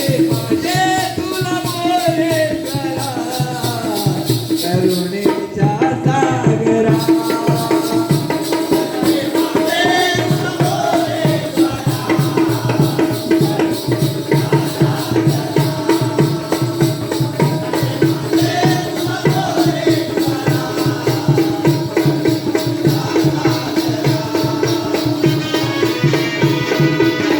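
Jakhadi folk music: a singer's phrases over a steady held drone, with fast, even hand-drumming and a shaken rattle keeping the rhythm.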